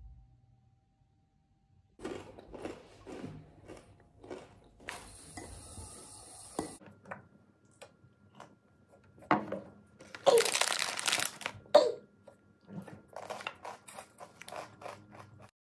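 A plastic snack bag crinkling and rustling as it is handled, with crunching. It starts about two seconds in, and the loudest crackling comes about ten seconds in.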